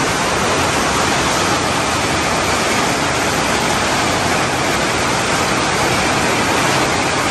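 Steady, loud rushing noise, even from low to high pitches and unchanging throughout.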